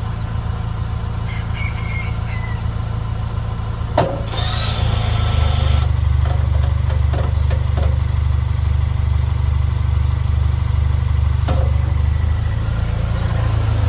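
2025 Toyota 4Runner engine running steadily. About four seconds in there is a click, then a shrill, hissing screech for about a second and a half. This is the screech the owner gets when the truck goes into reverse, which has come back after two repairs.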